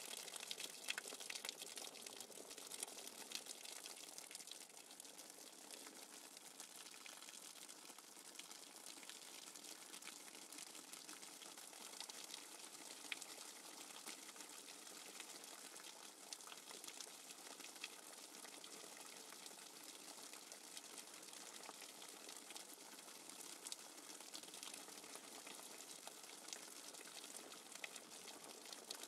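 Steady rain falling: a soft, even hiss scattered with many small ticks of drops.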